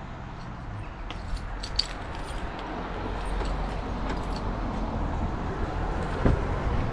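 Faint clicks like jangling keys while walking, under a steady outdoor noise that grows louder, then a sharp click about six seconds in as the Hyundai's car door handle is pulled and the door unlatches.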